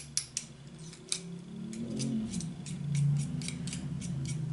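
Metal spoon clicking and scraping against a glass mixing bowl while scooping thick muffin batter: an irregular series of sharp clicks, about a dozen.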